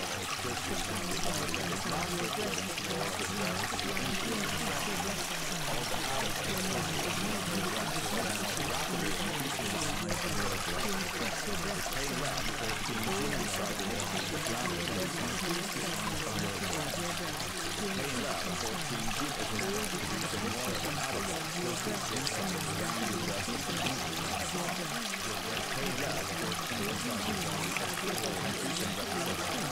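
Steady sound of running water, like a flowing stream, even and unbroken throughout.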